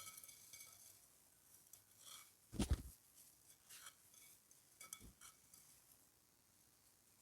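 Dry, dusty clay crumbling and breaking into fragments: faint crisp crackles throughout, with a heavier crunch about two and a half seconds in and a smaller one near five seconds.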